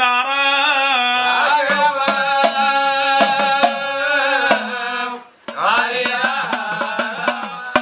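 A man singing a Tamil folk ballad in long, wavering held notes, with drums struck alongside him. The singing breaks off briefly about five seconds in, then carries on with the drum strokes.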